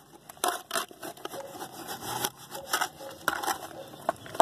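Mason's trowel stirring and scraping through wet cement-and-sand mortar in a bowl, in short irregular strokes with occasional knocks.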